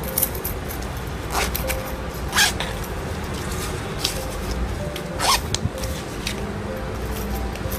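Small fabric pouch being handled: rustling and small scratchy clicks over a steady low hiss, with two longer scraping strokes, one about two and a half seconds in and one a little after five seconds.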